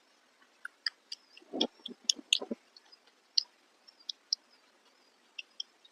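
Close-up eating sounds: chewing with scattered sharp wet mouth clicks and smacks, busiest between about one and two and a half seconds in, where a few fuller chews stand out.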